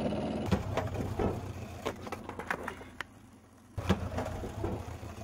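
A skateboard rolling on asphalt with a series of sharp clicks and knocks, over the low hum of a small car driving alongside. The sound drops out after about three seconds, then comes back suddenly with a loud knock from the board as the skater jumps the car.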